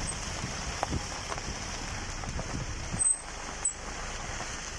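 Steady rain hiss with scattered drips and light clicks, and two short high squeaks about three seconds in.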